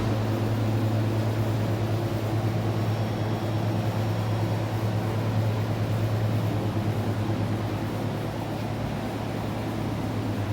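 A steady low hum over a background wash of noise.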